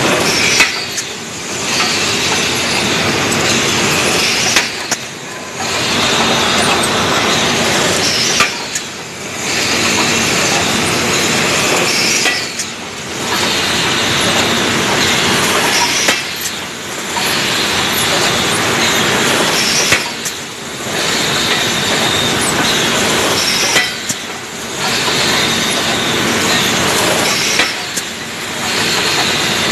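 Aluminium ingot casting line machinery running loudly with a continuous metallic clatter and a faint squeal. The noise repeats in a regular cycle: a sharp clank about every four seconds, each followed by a brief lull of a second or so.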